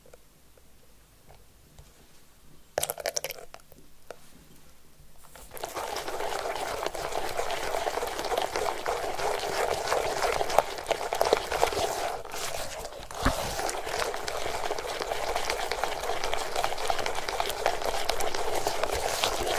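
Wire balloon whisk beating thick egg yolks and sugar in a glass bowl: after a quiet pause with one brief clatter near three seconds, fast continuous whisking starts about five seconds in, a wet, rapid swishing with the wires ticking against the glass.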